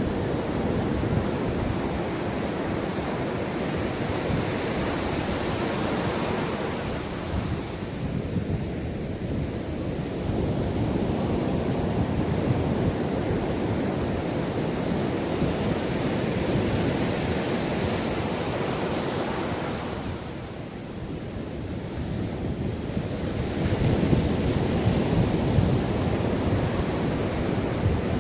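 Ocean waves breaking and washing up the shore, surging and ebbing in slow swells, with wind buffeting the microphone.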